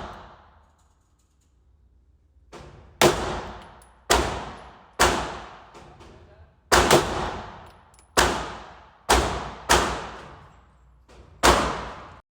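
Gunshots on a shooting range: about eight single shots fired at an uneven pace, starting about three seconds in. Each is a sharp crack followed by an echo that dies away over about a second.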